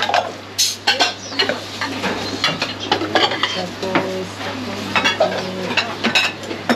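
Ceramic soup bowls and metal utensils clinking and clattering in quick, irregular knocks as a pho kitchen serves up bowls, over a steady low hum.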